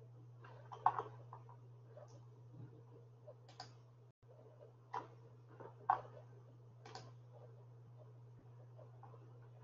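Scattered single computer mouse clicks, about half a dozen short sharp clicks spread irregularly, over a faint steady low hum.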